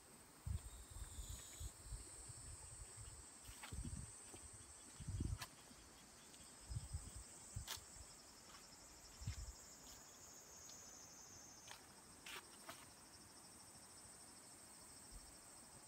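Faint, steady high-pitched chirring of insects, with a few sharp ticks. Low bumps of wind or handling on the microphone come and go in the first half.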